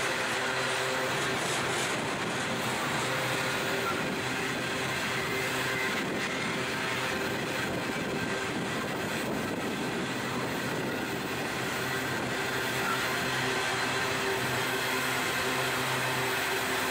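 Freight train of coal hopper wagons rolling past: a steady, continuous noise of steel wheels running on the rails.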